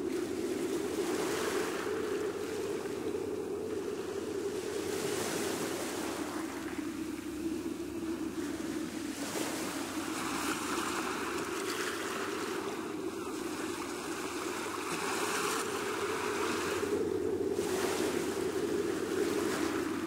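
Sea waves washing onto a sandy shore: a steady rush of surf, with louder surges every few seconds.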